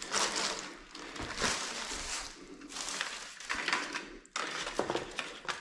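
Packaging rubbish being gathered up and crumpled: irregular rustling and crinkling with a few short knocks.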